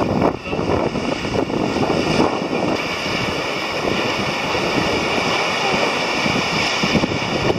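Strong wind buffeting the microphone aboard a sailing yacht under sail, with the rush of sea water along the hull.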